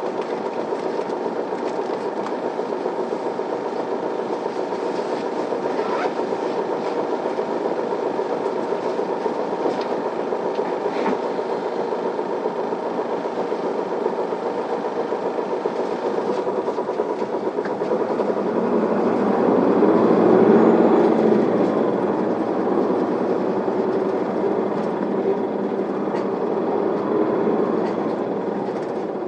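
Isuzu Erga city bus's diesel engine and drivetrain heard from inside the cabin while driving, a steady running hum that swells louder for a few seconds about two-thirds of the way through, with a few light rattles.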